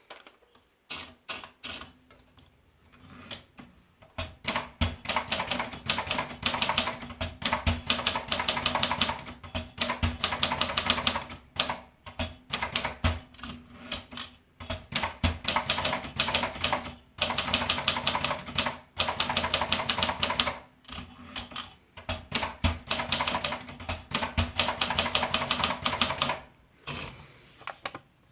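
Brillant Comfort 200 typewriter being typed on: a few separate keystrokes at first, then fast runs of typing broken by short pauses.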